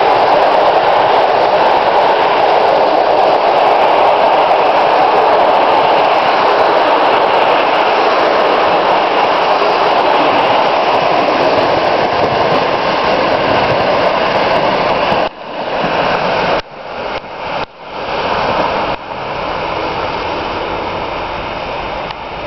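Passenger train coaches rolling past close by, a loud steady rumble of wheels on rail. About 15 seconds in the noise falls off abruptly with a few brief dips, and a quieter steady noise remains as the train moves away.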